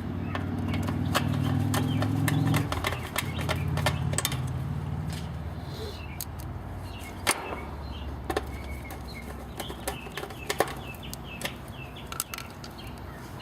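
Steady motor hum for about two and a half seconds, dropping to a lower hum that fades out near the end, with scattered sharp clicks and taps of parts being handled and birds chirping.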